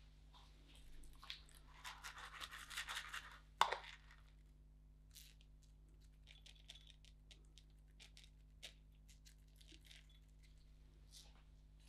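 Hands working with utensils and toppings while making rolled ice cream: about two seconds of crinkly, scratchy rustling, then one sharp clink, followed by scattered light taps and clicks.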